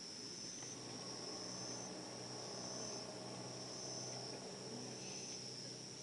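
Crickets trilling steadily in a high, unbroken drone, several voices overlapping at slightly different pitches.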